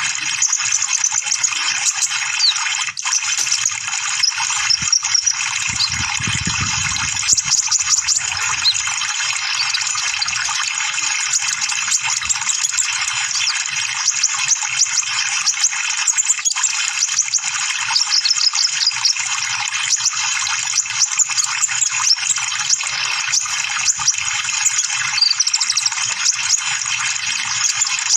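Sunbird (kolibri ninja) song: a dense, rapid stream of high-pitched chirps and trills over a steady hiss.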